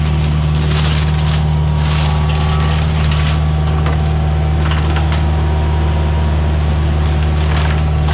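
Forestry mulcher running steadily, its engine and spinning cutter drum droning, with scattered cracks and crackles of brush and wood being shredded.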